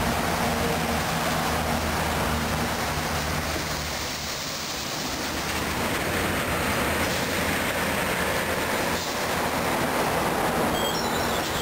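Busy highway traffic passing close by: a steady rush of tyre and engine noise from cars and heavy lorries, with a lorry engine's low drone that fades after about three seconds.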